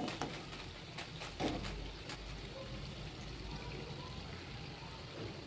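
Wire spider skimmer clinking against a kadhai as fried vadas are lifted out of hot oil, with a few sharp taps in the first two seconds and the loudest about a second and a half in. Oil drips and trickles off the skimmer, over a faint hiss from the oil.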